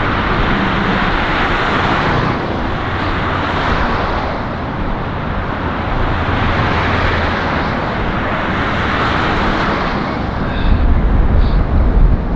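Road traffic passing, cars swishing by in waves, with wind buffeting the microphone in a low rumble that hits hardest near the end.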